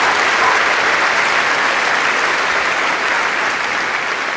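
Theatre audience applauding steadily, the clapping beginning to die down near the end.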